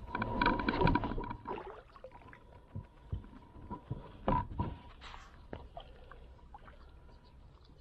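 Knocks and scrapes on a plastic kayak hull as a person settles into the seat and takes up the paddle, the loudest bumps in the first second and again about four seconds in.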